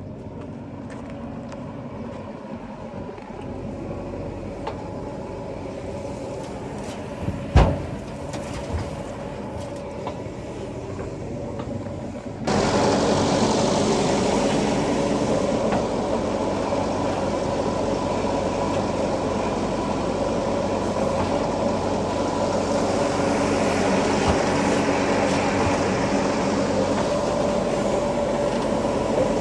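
Heavy diesel engine of the backhoe or tractor running steadily, with one sharp knock about seven and a half seconds in. About midway the sound jumps suddenly louder and brighter and stays there.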